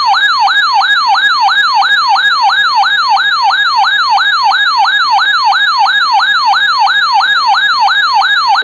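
Weather alert radio's electronic siren alarm sounding for a severe thunderstorm warning: a loud yelp sweeping up and down about three times a second, then cutting off abruptly.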